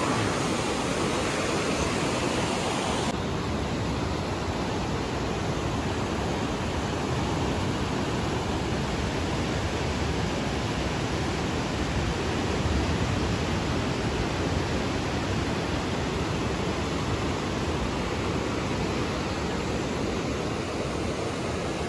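Steady rush of the fast, swollen Swat River churning through rapids.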